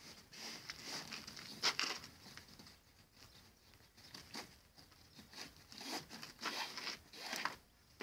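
Plastic tarpaulin and pack-saddle strapping rustling and scraping in irregular bursts as a load is fastened under a horse's belly, with the sharpest scrape just under two seconds in.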